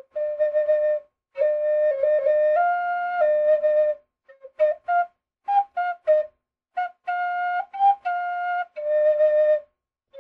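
A simple tune played in held, flute-like notes that step up and down between a few nearby pitches, in short phrases with brief gaps between them.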